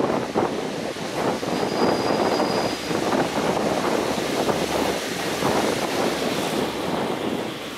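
Train running past on the rails: a loud, steady rushing noise with many irregular knocks, and wind buffeting the microphone. A faint high tone sounds briefly about two seconds in.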